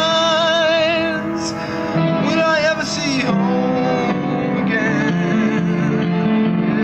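Live song: sung vocal lines with vibrato over guitar and sustained chords.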